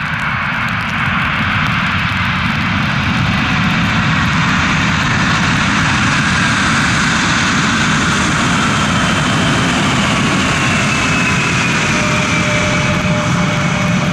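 Twin turbofan engines of a Fuji Dream Airlines Embraer regional jet running loud during the landing rollout. A steady roar with a whine that falls slowly in pitch as the aircraft decelerates past.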